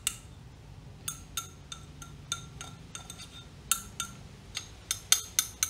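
Steel spatula scraping and tapping against the inside of a glass round-bottom flask, giving irregular sharp clinks, some with a brief glassy ring, as iodine crystals are scraped off the walls.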